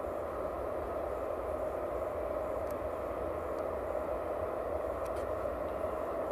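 Steady hiss and low rumble of an Airbus A319-100 jet airliner running, even in level throughout, with a few faint ticks.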